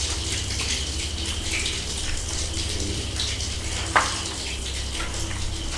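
Water splashing and dripping on a wet tiled floor under flip-flop footsteps, over a steady low hum. There is one sharp knock about four seconds in.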